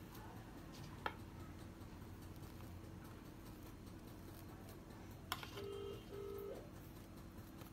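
A telephone-style ring tone sounds near the end: two short beeps close together. Before it come two sharp clicks over a faint steady hum.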